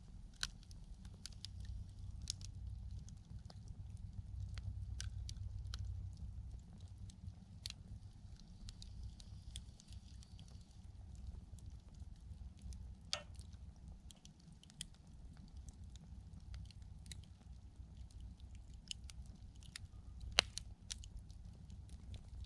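Wood campfire crackling, with irregular sharp pops, the loudest about twenty seconds in, over a steady low rumble.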